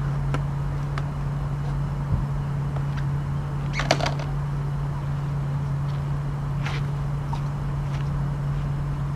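A few light clicks and clatters of the folding canoe's frame parts being handled and set down, the loudest a little before four seconds in, over a steady low hum.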